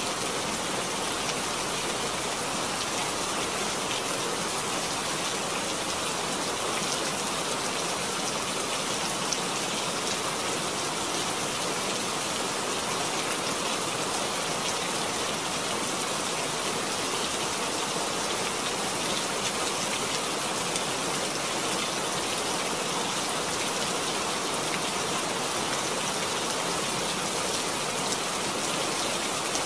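Steady, even rain falling on a wet, hard outdoor surface, the many small drop impacts blending into a continuous hiss.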